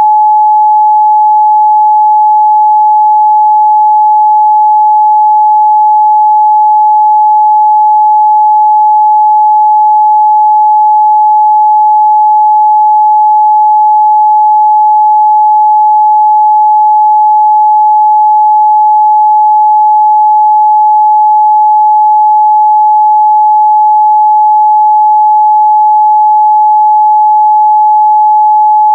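A steady, loud 852 Hz pure sine-wave test tone, one unchanging pitch with no other sound.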